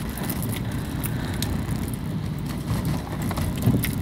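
Steady low rumble of a car's engine and tyres heard from inside the cabin while driving slowly on a snow-covered road, with scattered faint clicks.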